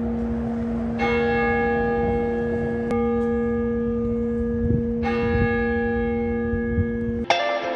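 Church bells ringing in the twin brick towers, a new stroke about every two seconds, each leaving a long, steady hum. The bells cut off abruptly near the end, replaced by guitar music.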